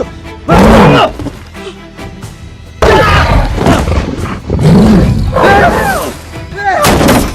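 Film soundtrack mix: music under loud screams, yells and a roaring noise in several bursts, the loudest just after the start and between about three and six seconds in.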